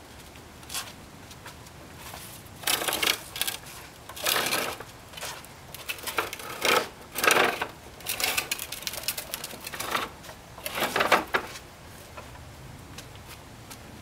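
Plastic toddler tricycle with a push handle rattling and clattering as its hard plastic wheels are pushed over brick paving. It comes in a series of bursts a second or so long, starting a few seconds in and stopping a few seconds before the end.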